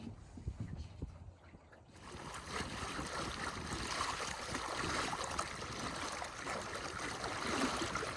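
Water rushing and gurgling along the hull of a small sailboat under sail, faint at first and much louder from about two seconds in.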